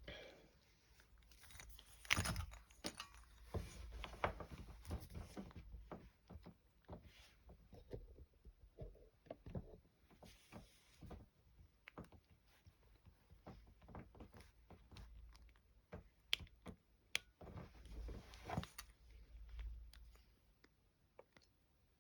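Faint, irregular clicking and rattling of a combination bike lock's number wheels being turned and the lock being handled, with a few sharper clicks near the end.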